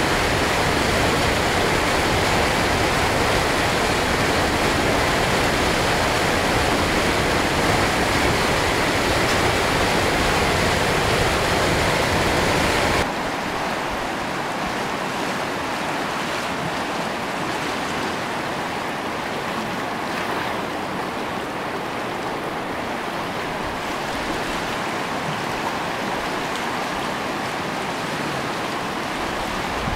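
Rushing creek water, a steady full rush. About 13 seconds in it cuts abruptly to a quieter, duller rush of water.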